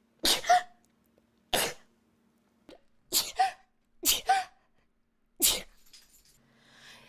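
A person sneezing in a rapid fit: five sharp sneezes in under six seconds, roughly a second apart, several coming as a quick double burst.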